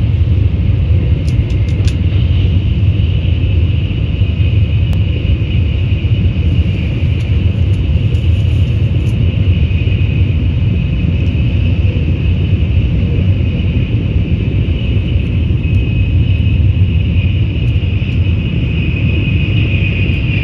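Cabin noise of a Nozomi Shinkansen bullet train running at speed: a steady low rumble with a hiss above it that grows a little louder near the end.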